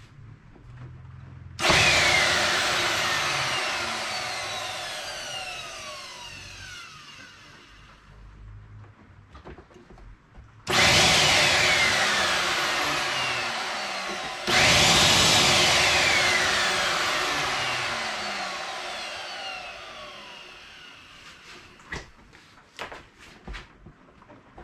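The vacuum cleaner's electric motor and turbine are switched on in three short bursts, about 1.5, 11 and 14.5 seconds in. Each burst starts suddenly and loudly, then coasts down with a whine falling in pitch over several seconds. A few light knocks follow near the end.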